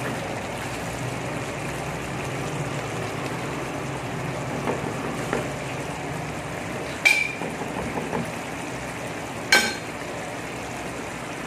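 Chicken curry in coconut milk simmering steadily in a frying pan while a wooden spatula stirs it. There are light taps about halfway through, then two sharp ringing clinks of the spatula against the cookware, the second near the end.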